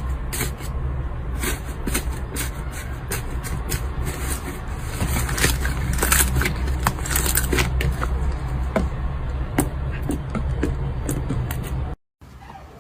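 Slime being handled, squeezed and poked, giving rapid irregular clicking and crackling pops over a steady low hum. The sound cuts off suddenly near the end.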